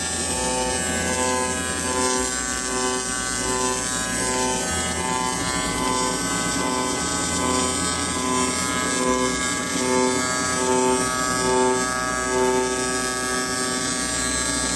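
AC TIG welding arc on an aluminum pipe: a steady electric buzz that swells and dips about twice a second as the pulsed arc cycles.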